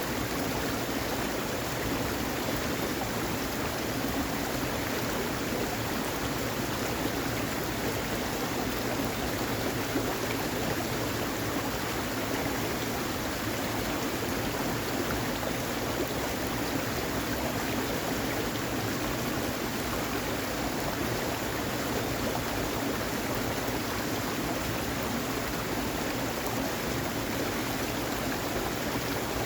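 Steady, unbroken rush of water, even and unchanging throughout.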